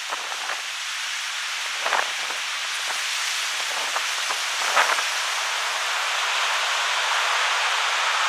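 Heavy ocean surf: a steady hiss of breaking waves that grows slowly louder, with short sharper rushes of water about two and five seconds in.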